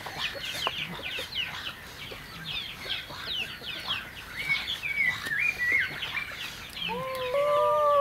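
Birds chirping all around, with quick high chirps and a short warbling phrase about five seconds in. Near the end comes one long call that rises, holds and then falls in pitch.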